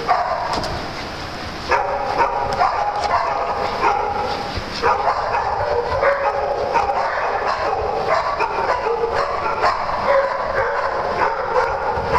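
Several small dogs barking over one another in quick, repeated barks, easing off briefly about a second in and picking up again.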